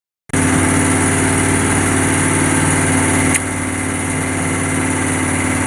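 A fishing boat's engine running steadily at idle, cutting in suddenly just after the start. There is a click and a slight drop in level about three and a half seconds in.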